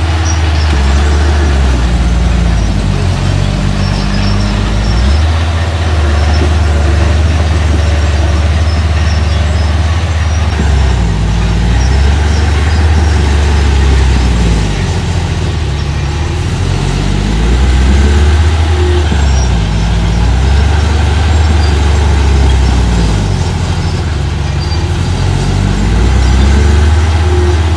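Diesel engine of a small earthmoving machine working under load, its pitch rising and falling again and again as the throttle opens and eases off.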